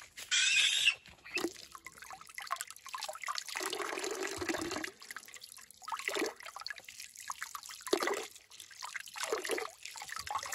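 Water running from a pipe into a stone trough, splashing and trickling over carrots and squash as hands rinse them in the stream. A brief louder burst of noise comes just after the start.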